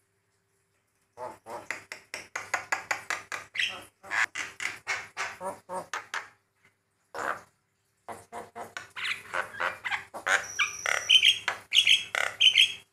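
Javan myna (jalak kebo) singing: after a moment of silence, fast runs of harsh chattering notes and squawks in several bursts, with a short high whistle about ten seconds in.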